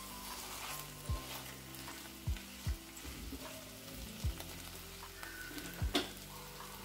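Onion-tomato masala with cashews and spices sizzling in a pan as it is stirred, with about five soft knocks, the loudest sounds. The tomatoes have cooked down until their skins come away, so the masala is done.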